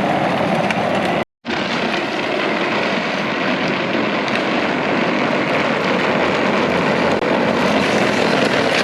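Power Wheels Dune Racer ride-on toy driving along, its replacement electric motors running and wheels rolling in a loud, steady noise. The sound cuts out abruptly for a moment about a second in.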